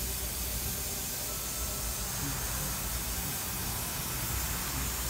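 Steady hiss of steam from a small steam locomotive standing in steam on a turntable, with a low rumble underneath.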